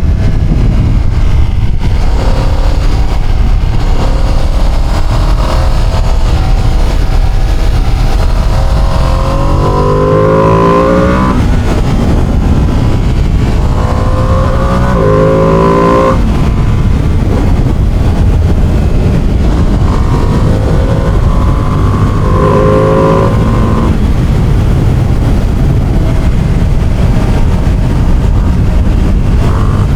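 Ducati Panigale motorcycle engine and exhaust under way, with a steady low rumble. The revs climb through the gears in three runs of acceleration, about a third of the way in, around the middle, and about two-thirds in, each cut off at the shift.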